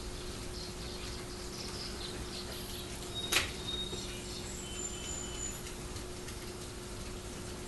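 Koi feeding on floating pellets at the water surface: one sharp smack about three and a half seconds in, over a steady low hum.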